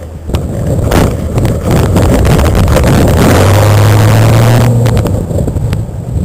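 Shelby Mustang V8 revving hard for a burnout. About three seconds in, the engine is held at steady high revs with a loud tyre-spin hiss for a second and a half, then eases off as the car pulls away.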